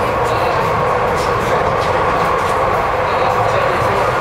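Docklands Light Railway train running along the track, heard from inside the car: a steady rumble with an even whine of two held tones.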